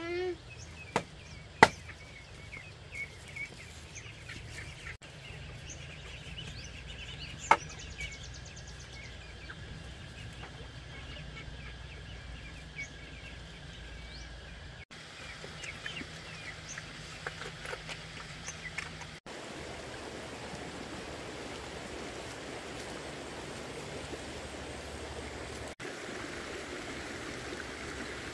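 Small birds chirping over outdoor background noise, with three sharp knocks in the first several seconds, the loudest about a second and a half in. After about two-thirds of the way through, a steady rush of running stream water takes over.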